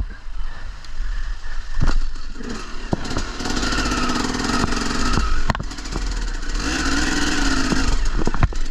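Motorcycle engine revved and held for a couple of seconds, twice, about three and six and a half seconds in, with a few sharp knocks in between.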